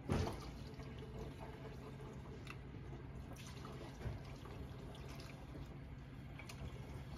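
Liquid coolant trickling and dripping through a funnel into a laser water chiller's reservoir as it is filled. A single knock sounds just at the start, over a faint steady low hum.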